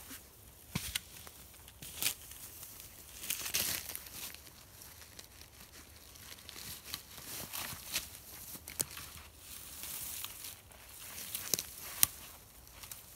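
Dry deadfall branches and brush crackling, rustling and snapping as they are pulled out of the undergrowth by hand, with several sharp snaps, the loudest near the end.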